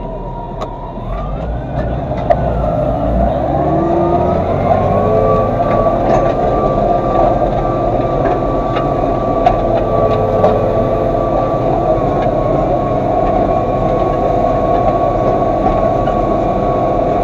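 Massey Ferguson 3115 tractor engine running while working the field. It speeds up over the first few seconds, then settles to a steady pitch with a constant whine.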